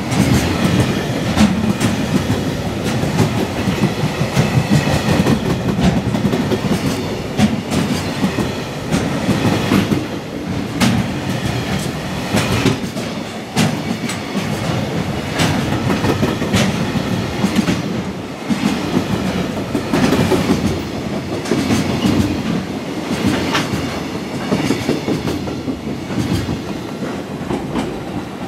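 Long JR Freight container train passing close at speed. Its wagon wheels clatter over the rail joints in a steady clickety-clack over a rush of air. The sound eases a little as the last wagons go by near the end.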